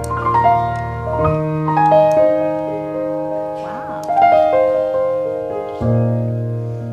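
Grand piano played solo: a melody of ringing, sustained notes over held bass notes, the bass changing about a second in and again near the end.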